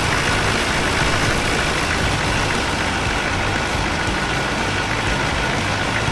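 Chevrolet K3500's 6.5-litre turbo-diesel V8 idling steadily.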